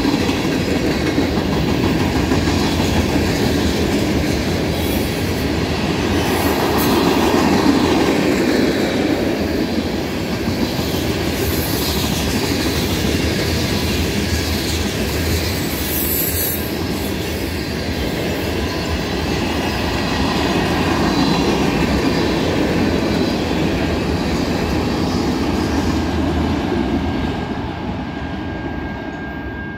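BNSF freight train of covered hoppers and tank cars rolling past at close range: a steady rumble of steel wheels on rail with clickety-clack over the rail joints. It gets quieter near the end.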